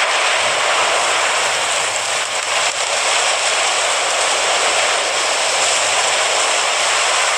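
Surf breaking and washing over wet sand: a steady, loud rush of foaming seawater.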